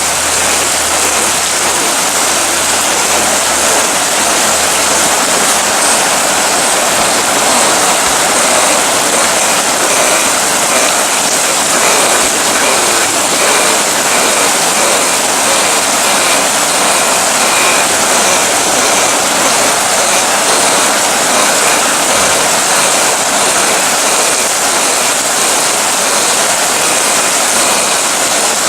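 Steady heavy rain, an even hiss with no let-up. Through the middle, a faint run of short high chirps repeats over and over.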